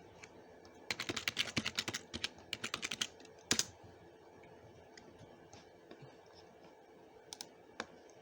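Typing on a computer keyboard: a quick run of keystrokes for about two seconds, one louder key press shortly after, then a couple of light taps near the end.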